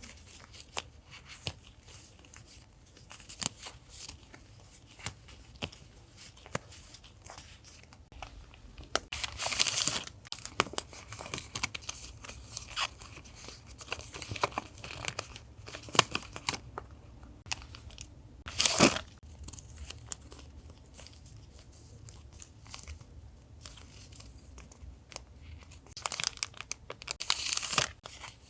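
Paper being handled up close: rustling, crinkling and tearing, with light taps and clicks throughout and a few louder rustles about ten, nineteen and twenty-seven seconds in.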